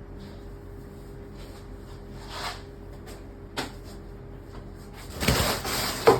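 Household handling noises over a steady low hum: a single click about three and a half seconds in, then about a second of loud rustling and scraping that ends in a sharp clack, like a cupboard or drawer being worked.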